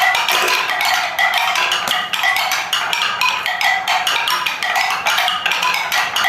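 Many marbles clattering down a wooden ramp tower marble run: a dense, rapid stream of clicks and knocks with short ringing tones as they strike the wooden track.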